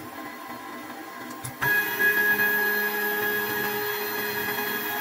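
Stepper motors of an AnoleX 4030-Evo Ultra 2 desktop CNC router driving its ball-screw axes through the homing cycle. A steady whine of several held tones starts sharply about a second and a half in, and its lowest tone drops out briefly near the end as the axis moves change.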